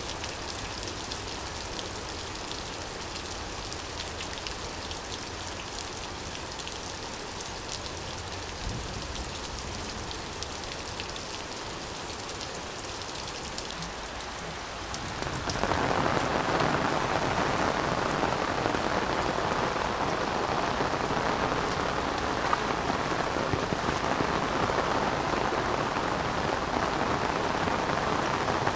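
Heavy rain falling steadily, with fine drips ticking from a roof edge. About halfway through it suddenly becomes louder and fuller.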